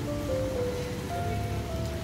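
Background music: a slow melody of held notes over a steady low bass bed.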